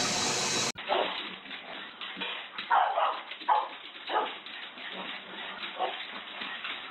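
Small dog barking in a handful of short, high yips with uneven gaps, the strongest about three seconds in. It opens with a steady hiss that cuts off abruptly under a second in.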